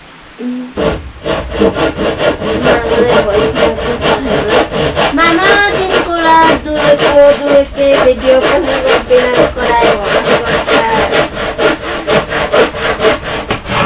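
Hand saw cutting through a wooden plank in quick, even back-and-forth strokes, about four a second, starting just under a second in.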